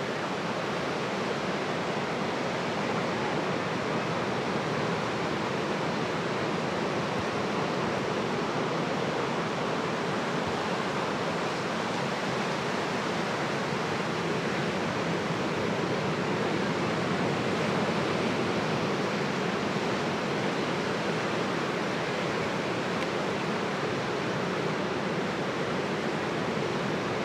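Ocean surf breaking on the shore: a steady, even rush of waves with no single breakers standing out.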